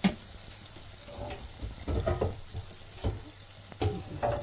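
Boneless chicken pieces and green chillies sizzling steadily in yoghurt masala in a non-stick wok, with a few sharp knocks and clatters of cookware.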